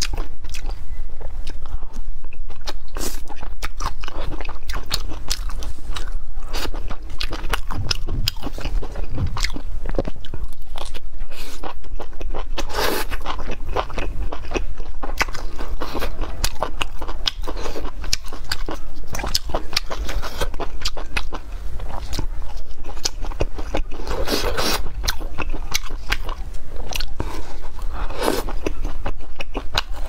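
Close-miked eating: a person biting and chewing spicy sauce-coated skewered food with wet, sticky smacks and crunches. Denser, louder clusters of chewing come around the middle and again near the end.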